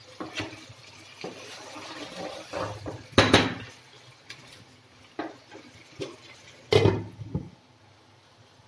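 Wooden spatula stirring chicken pieces in a nonstick frying pan over a light sizzle, knocking against the pan several times, loudest about three seconds in and again near seven seconds.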